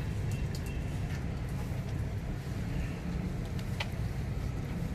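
Steady low rumble of outdoor background noise, with a few faint clicks and one sharper click about four seconds in.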